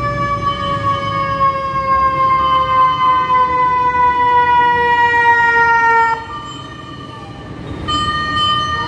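Fire truck siren sounding one long tone that slowly falls in pitch, then cuts off about six seconds in; it starts again near the end at its higher pitch. Low traffic engine rumble runs underneath.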